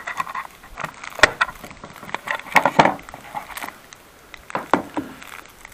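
Plastic shark-fin car antenna being handled on the metal car roof: scattered clicks, taps and light scrapes, with a few sharper knocks about a second in, near the middle and near the end.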